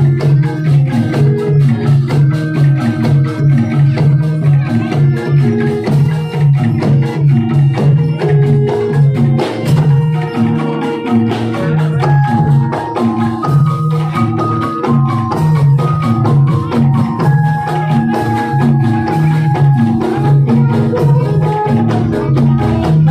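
Loud live music for a kuda kepang (jathilan) horse dance: a Javanese gamelan-style ensemble of struck metallophones and drums plays a steady, repeating low pulse under a stepping melody of short struck notes.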